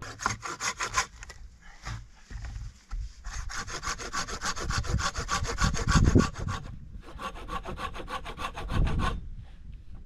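Handsaw cutting through wood with fast back-and-forth rasping strokes, in three runs, the longest lasting about three and a half seconds in the middle.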